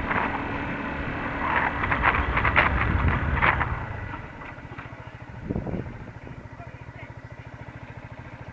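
Yamaha MT-125 single-cylinder engine under way, with wind rush and crackling buffeting on a helmet-mounted mic. About four seconds in the rush falls away as the bike slows, leaving the engine ticking over with a steady rapid beat and one brief rise and fall in pitch.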